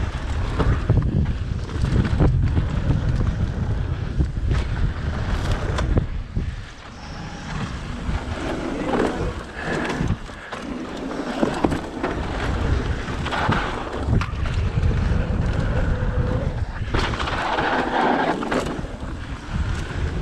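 Mountain bike riding down a dusty dirt singletrack: wind buffeting the microphone over the rumble of tyres on dirt and rock, with the bike rattling and knocking sharply over bumps.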